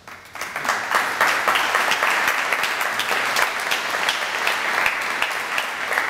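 Audience applauding: many hands clapping, starting a moment in and holding steady.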